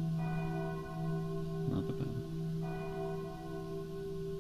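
Bell tolling slowly, struck twice about two and a half seconds apart, each stroke ringing on over a steady low hum.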